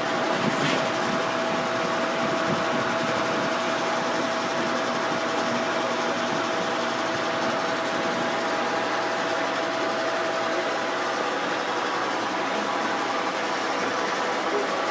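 Kearney & Trecker 2H milling machine running steadily during a thread-milling job, a constant mechanical drone with a thin steady whine over it.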